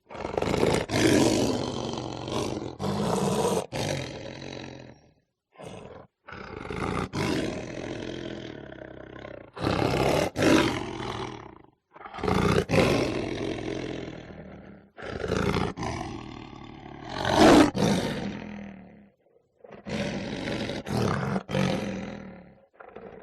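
Lion roaring, about six long roars one after another with short pauses between them.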